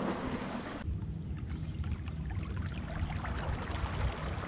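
Water rushing and lapping around a paddle board under way, with wind rumbling on the microphone. About a second in the sound changes abruptly to a low rumble with small scattered splashes.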